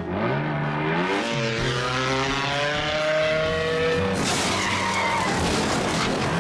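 Cartoon sound effect of a dune buggy's engine revving, its pitch climbing in several rising sweeps for about four seconds. About four seconds in it changes to a loud, rough noise of the buggy skidding.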